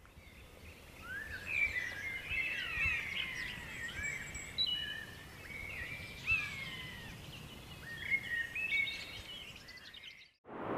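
Several songbirds singing together: many quick rising and falling chirps and whistles overlapping, over a faint low rumble. It fades in at the start and stops shortly before the end.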